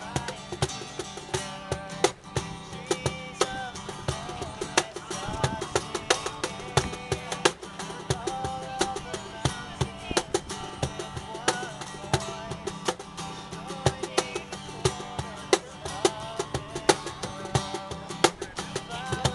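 An acoustic guitar strummed along with a Meinl cajon slapped by hand, keeping a steady, continuous beat of sharp strokes.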